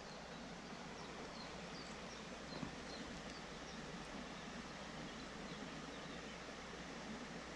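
Steady rush of a small creek's flowing water, with a series of faint high chirps, about two a second, through the first half.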